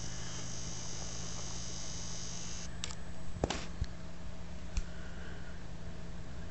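Indoor room tone: a steady low electrical hum with a high hiss that stops about two and a half seconds in, and a few light clicks and knocks from handling the camera.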